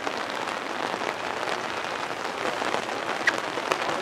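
Steady pattering hiss of light rain falling close to the microphone, with two sharp ticks a little after three seconds in.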